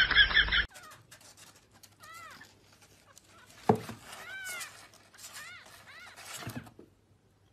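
A loud voice cut off abruptly under a second in, then a kitten mewing: several short, thin, high-pitched mews rising and falling in pitch, with one sharp thump about halfway through.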